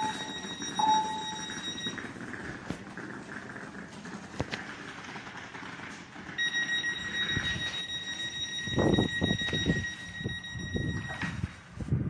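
Leo Express train's door-closing warning: a steady high electronic tone that stops about two seconds in, then sounds again from about six seconds in for about five seconds. A low, uneven rumble rises under the end of the second tone.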